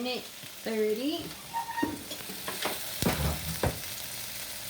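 Chicken breasts sizzling steadily as they fry in a pan, with a few sharp knocks a little over halfway through.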